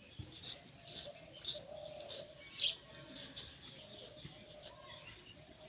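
A dove cooing over and over in short, evenly spaced coos. Over it come quick, light scraping clicks from a knife paring the skin off a raw potato.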